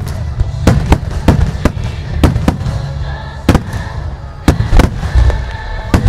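Starmine firework display: aerial shells bursting in quick, irregular succession, about ten sharp bangs over a continuous low rumble of further reports and their echoes.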